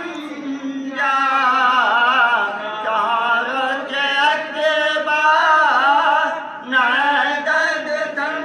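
Men's voices chanting a marsiya, a grieving elegy for Imam Husain: a wavering lead melody sung in lines over a low held note, unaccompanied by instruments.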